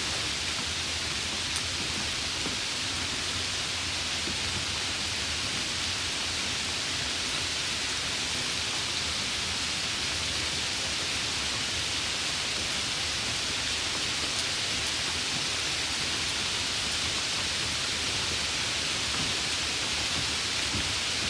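Steady, even rain with a hiss that never lets up and a few faint drop ticks.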